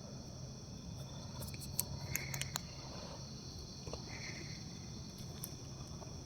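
Steady chorus of crickets, several high chirping tones held without a break. A few sharp clicks come between about one and a half and two and a half seconds in.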